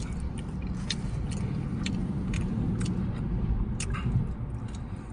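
Close-miked chewing of fast food, with sharp wet mouth clicks about twice a second over a low rumble.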